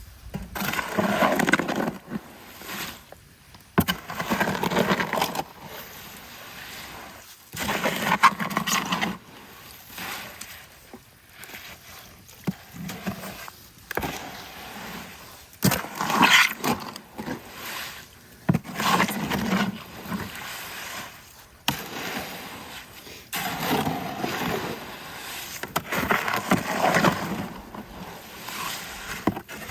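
Wet concrete being mixed by hand for a fence post: a tool scraping and churning through the mix in repeated strokes, one every three to four seconds.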